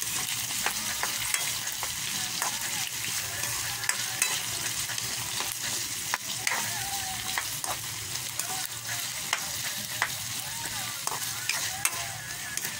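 Potato chunks, onions and green chilies sizzling in oil in a metal wok, stirred with a spatula that scrapes and clicks against the pan again and again.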